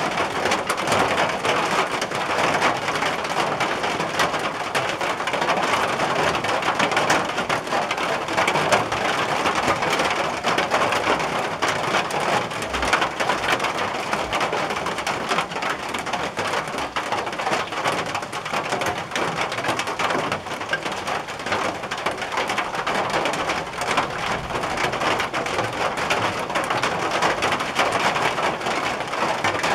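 Steady, heavy rain pattering on a tin roof, a dense unbroken patter of drops.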